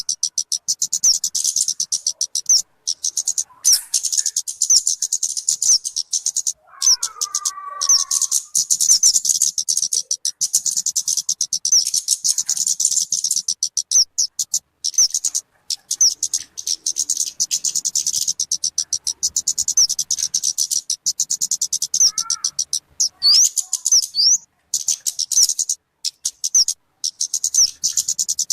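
Talokan (kemade) bird song: a fast, high-pitched chattering run of rapidly repeated notes, broken by brief pauses. A lower warbling phrase comes in about seven seconds in, and a short one near the twenty-two-second mark.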